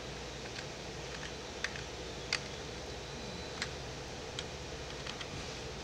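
About eight isolated clicks from a computer mouse and keyboard, spaced irregularly, with several close together near the end, over a steady low hum of room noise.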